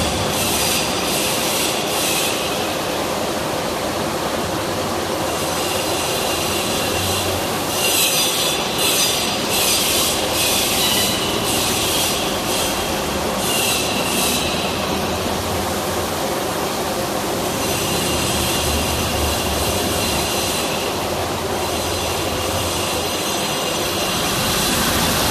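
Breton KFT 3600 slab polishing machine running, its polishing heads grinding a limestone slab with a steady industrial rush. A high squealing hiss comes and goes several times.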